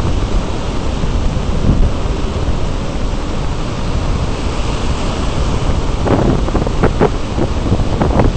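Wind buffeting the camera microphone as a heavy, steady low rumble, with a few sharper gusts near the end. Surf breaking in the background under the wind.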